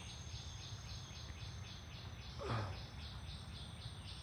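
Insects chirping in a steady, rapid pulse, about four or five chirps a second, over a thin high steady buzz. A brief, louder falling sound comes about two and a half seconds in.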